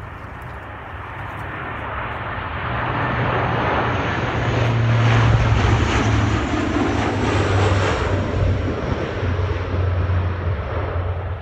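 C-130 Hercules four-engine turboprop transport flying low overhead. A deep propeller drone and rushing engine noise grow louder, peak about halfway through, then slowly fade as it passes.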